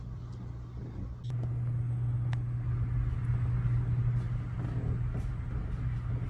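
Steady low drone of a car on the move, growing louder just after a second in, with a sharp click or two.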